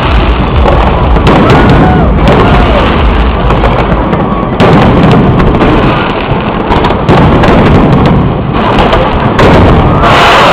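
Aerial fireworks exploding in a dense barrage: a continuous low rumble of booms, with sharp new bursts about every two to three seconds.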